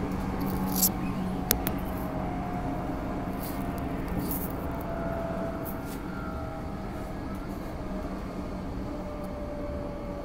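Electric train running noise heard from inside the passenger car: a steady rumble and hum with a faint motor whine slowly falling in pitch, and two sharp clicks about a second in.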